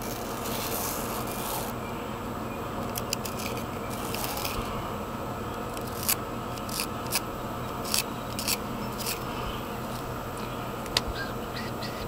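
Pencil and plastic torpedo level scraping and tapping against a brick wall as marks are made: scratchy rubbing near the start and again around four seconds in, with a series of sharp little clicks in between.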